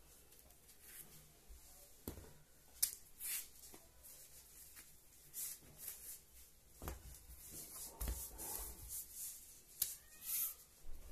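Ripe bananas being peeled by hand: soft rubbing and tearing of the peel, with scattered light clicks and knocks as the fruit is handled over the bowl.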